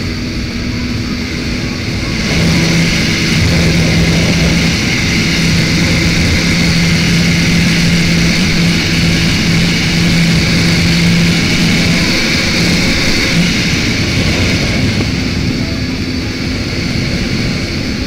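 Honda CBR125's single-cylinder four-stroke engine running hard at high revs at speed, with wind noise over it. The engine note gets louder about two seconds in, holds steady, and eases a little near the end.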